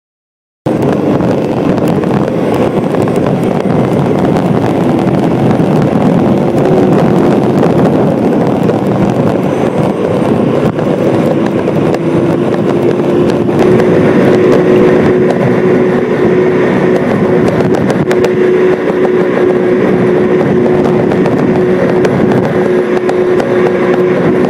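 Jet boat engine running hard at cruising speed, heard on board with wind and water rush, a steady loud roar with one held engine note that firms up about halfway through. It cuts in abruptly under a second in, recorded on a phone sealed in a waterproof case.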